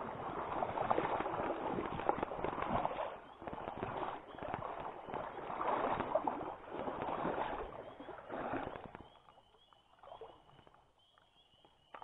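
Footsteps wading through a shallow stream: water sloshing and splashing around the legs in a swell with each stride, stopping about nine seconds in. Faint repeated high chirps follow near the end.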